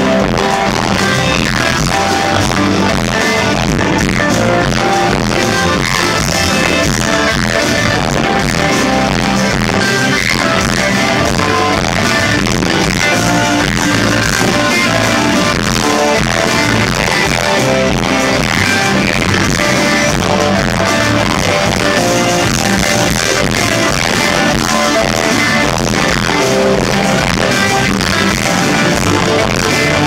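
Live progressive rock band playing loudly through the PA: electric guitars, bass, drums and keyboards, recorded from the crowd at the stage front with poor sound quality.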